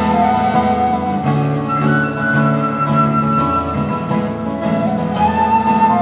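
Rock band playing a song's instrumental intro live, as heard from the crowd: guitar and drums with a repeating low bass line and a held melody on top, before the vocals come in.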